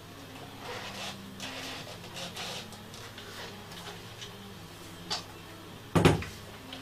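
Wooden music-box parts being handled and fitted together on a workbench: light rustling and clicking of wood, a sharp click about five seconds in, then a loud knock on the bench about a second later.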